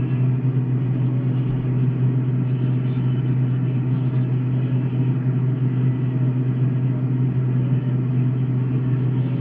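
General Electric refrigerator running with a steady low hum from its compressor and fan motor. The compressor is working without refrigerant, so the compartments warm up instead of cooling.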